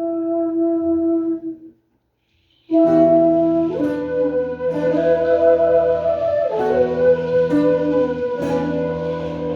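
Instrumental ensemble music: a wind instrument holds long notes, breaks off about two seconds in, and after a short silence the ensemble comes back in fuller, with a held wind melody over plucked strings.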